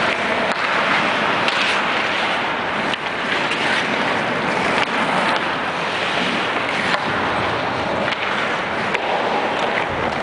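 Steady rushing noise picked up by a helmet camera on a skating hockey player: skate blades scraping the ice and air rushing over the microphone. A few faint clicks sound through it.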